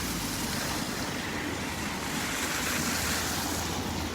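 Steady hiss of falling rain, swelling a little for a second or so in the middle.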